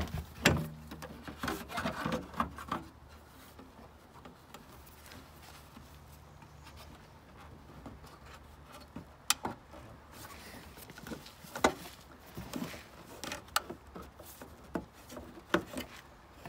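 Plastic Honda Civic taillight housing knocking, clicking and scraping against the car body as it is pushed and wiggled into its mounting holes. There is a run of knocks in the first few seconds, then single sharp clicks later on.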